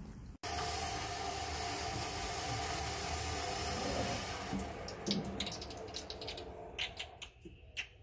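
Water rushing steadily through a water heater's supply pipe and ball valve. From about five seconds in, the brass valve's lever clicks several times as it is turned shut and the rush dies away.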